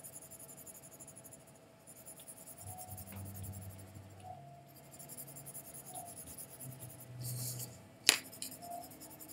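Red colored pencil scratching on paper in repeated back-and-forth strokes, laying red over white to build a pink tint, with a couple of short pauses. A single sharp knock about eight seconds in.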